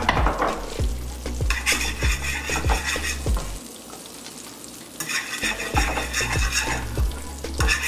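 Oil, butter and garlic sizzling in a hot nonstick frying pan while a fork stirs and scrapes through it. The sizzle eases for a couple of seconds in the middle, then picks up again.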